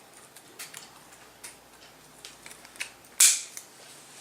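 Scissors cutting through a plastic card: a few faint clicks, then one sharp, loud snip about three seconds in.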